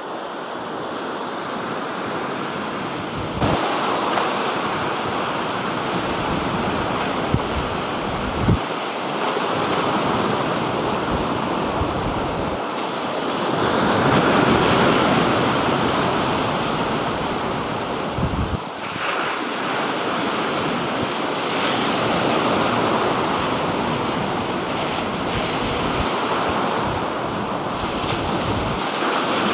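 Black Sea waves washing onto the shore, the surf swelling and easing every few seconds, with wind buffeting the microphone.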